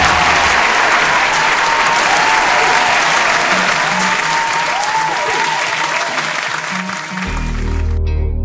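Audience applauding and cheering loudly. Music comes in underneath near the end, and the applause cuts off abruptly as the music takes over.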